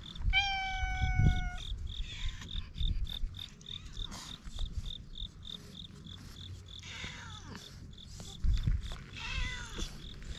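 Stray cats meowing: one long, level meow about a second in, then shorter, bending meows near the end as they are stroked. Behind them an insect chirps steadily, about three chirps a second.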